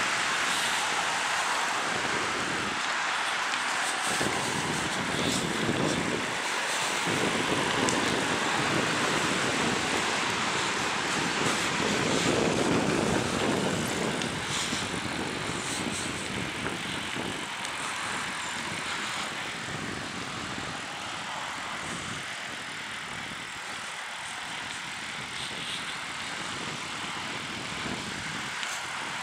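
Steady rushing noise of a bicycle being ridden along an asphalt bike path: wind on the microphone and the rumble of the tyres. It swells louder for several seconds in the middle, then eases.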